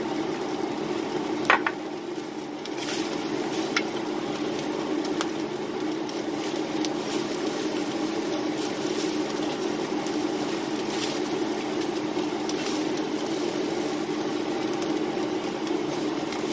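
Diced beef dusted with flour sizzling in a cast-iron skillet while two wooden spatulas toss and scrape it, over a steady low hum. A sharp knock of wood on the pan about a second and a half in, and a lighter one a couple of seconds later.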